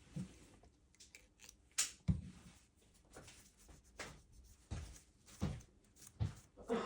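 Irregular small clicks and knocks, about eight in all, some with a low thud, from tools and parts being handled on a repair bench.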